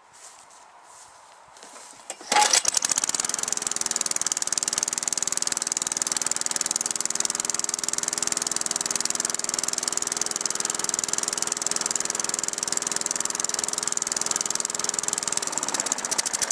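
Tecumseh lawn mower engine pull-started: it catches about two seconds in and runs steadily, its pitch sagging just before the end. The engine runs now that its carburetor bowl jet has been cleared of water and gas has got back into the bowl.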